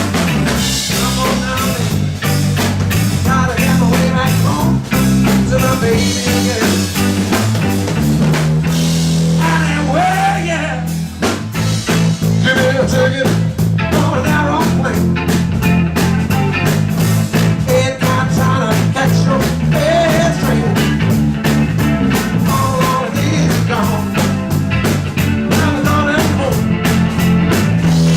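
Live rock band playing an instrumental break at full volume: a drum kit keeps a steady beat under bass and electric guitar, and some of the guitar notes bend in pitch.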